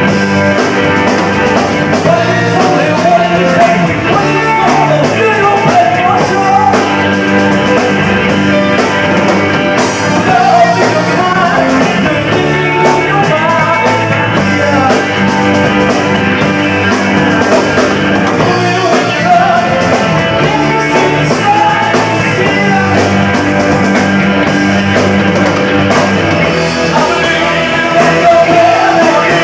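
Rock band playing live: electric guitars, bass guitar and a drum kit, with a sung vocal line at times.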